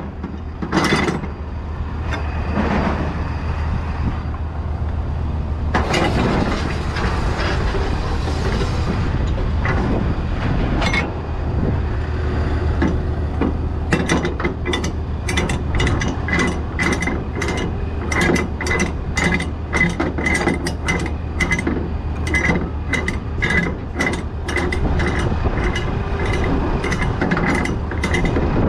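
Flatbed trailer strap winch being wound, its pawl clicking in an even run of about two to three clicks a second through the second half, after rustling and handling of the nylon strap. A steady low engine hum lies underneath.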